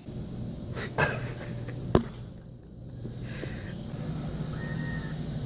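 Two sharp clicks about a second apart, the second louder, as a dollar bill is fed into a snack vending machine's bill acceptor, then a steady low machine hum.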